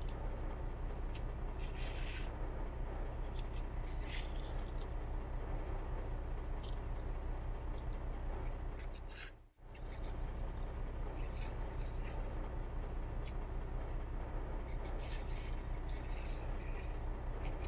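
Plastic toy construction trucks pushed by hand through sand and small aquarium gravel: scattered clicks and scrapes of pebbles over a steady low hum. The sound cuts out for a moment about halfway through.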